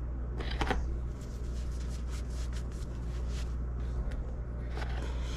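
Light rustling, small clicks and light scraping from hands wiping and handling the parts of an RC car's center differential, over a steady low hum.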